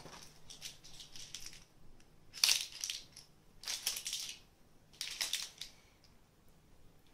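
Small plastic packaging being handled and crinkled, in three short rustling bursts about a second and a half apart, with fainter crackles before them.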